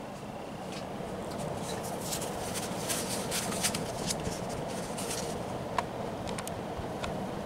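Montgomery Wards 48-inch cast iron spinner ceiling fan running at full speed: a steady rush of air from the blades over a low motor hum. A scattered run of light crackles comes through the middle, and one sharp tick follows later.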